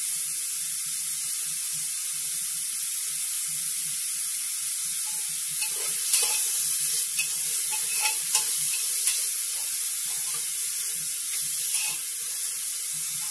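Chopped onions frying in oil in an aluminium pressure cooker with a steady sizzle, cooking to brown. From about halfway a metal slotted spoon stirs them, scraping and clicking against the pot.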